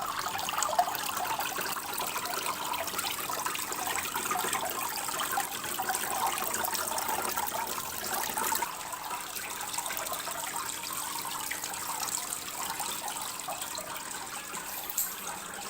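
Small cement waterfall fountain running, water trickling and splashing steadily, a little quieter from about halfway.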